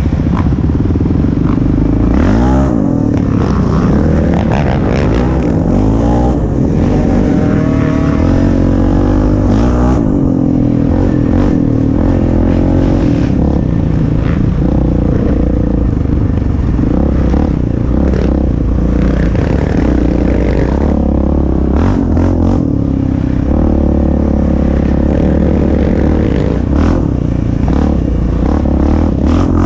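ATV engine running under load on a trail, its pitch rising and falling as the throttle is worked, with frequent rattles and knocks from the bumpy ride.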